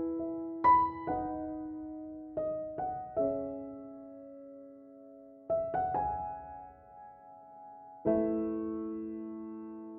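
Slow, gentle piano music: single notes and soft chords struck and left to ring, with long decays and pauses between phrases.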